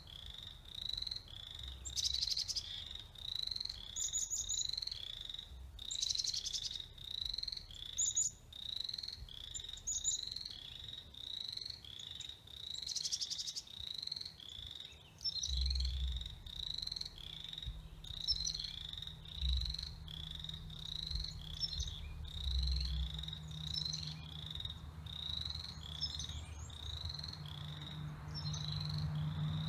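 A chorus of frogs calling: a steady, even series of short high peeps, about one and a half a second. Brief higher chirps come in every couple of seconds during the first half.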